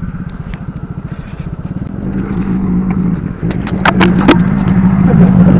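A small engine running steadily, a low pulsing hum that grows louder partway through. A few sharp clicks come around four seconds in as a line is cast out over the pond.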